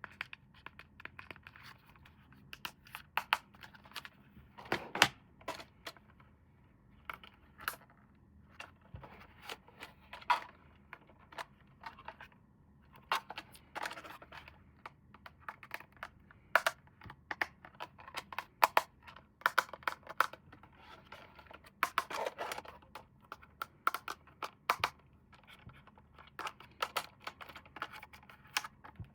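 Hands handling packaging and plastic toy parts: irregular sharp clicks with short bursts of rustling and scraping.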